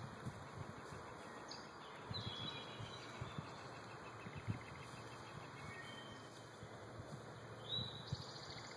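Quiet woodland ambience: small birds chirp in short high notes a few times over a faint steady hiss, with scattered soft low thumps.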